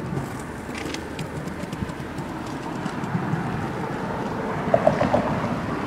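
Outdoor street background noise: a steady low rumble of traffic, with a few short chirps about five seconds in.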